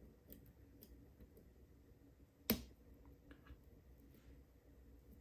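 Lock picks working the pins of a PACLOCK UCS-2A padlock: faint ticks, then one sharp click about halfway through as a pin sets and the core gives slightly.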